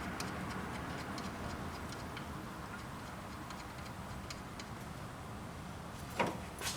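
Scattered faint, irregular metallic clicks of hand work on the alternator's tensioner bolt and nut, with two sharper clicks about six seconds in and near the end.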